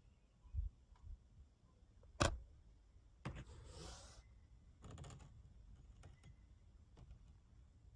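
Quiet handling noises inside a pickup cab: a couple of soft bumps, one sharp click a little over two seconds in, then two brief rustles.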